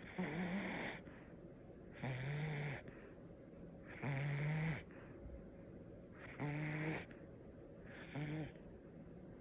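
Snoring: five snores about two seconds apart, each a low buzzing rasp lasting under a second.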